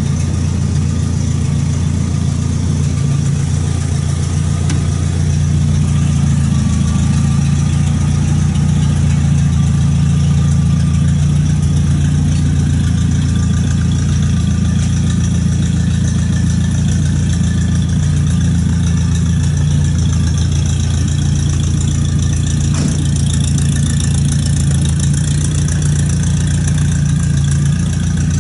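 Fairmont A4-E railroad gang car's engine idling steadily.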